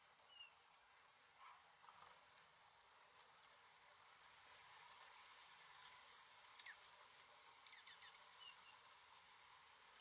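Faint, scattered calls of small songbirds: a few short high chirps, the sharpest about halfway through, then several quick downward-sweeping chip notes close together.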